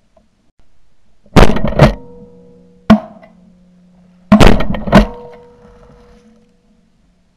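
Shotgun blasts recorded from a camera mounted on the gun: five sharp, very loud reports, two close together about a second and a half in, a single one near three seconds, and two more just after four seconds, each followed by a brief ringing tail.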